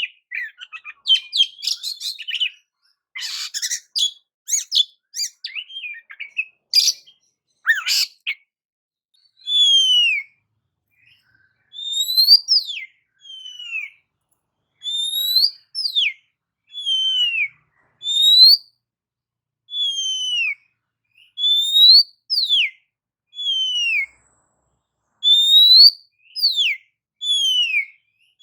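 Oriental magpie-robin (kacer) singing. The first few seconds are rapid, varied chattering notes; the rest is clear whistled phrases repeated about every two seconds, each a rising whistle followed by a falling one.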